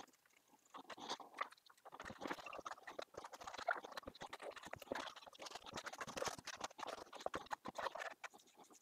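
Cotton rag rubbing and scrubbing over a freshly stained oak shelf, wiping off the excess stain in quick strokes, with light knocks of the wood being handled on the bench. The rubbing starts about two seconds in and is faint.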